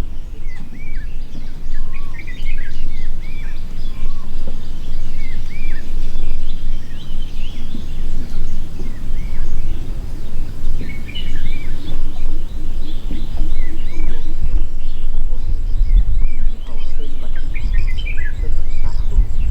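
Small birds chirping in short, quick, curved calls, scattered all through, over a loud, uneven low rumble.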